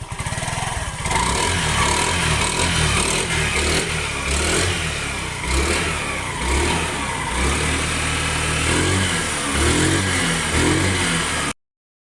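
Hero Maestro Edge scooter's single-cylinder engine running, louder from about a second in, with the revs rising and falling unevenly.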